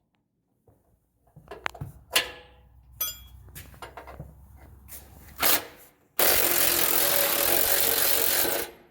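A power tool runs in short bursts, then steadily for about two and a half seconds before cutting off, with clicks and clanks of tools and parts in between, in the middle of torquing down the lifted Range Rover's suspension.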